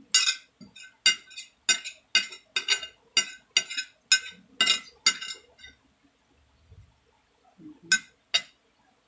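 Metal spoon scraping and clinking against a ceramic plate, a quick run of clinks about two a second, then a pause and two more clinks near the end.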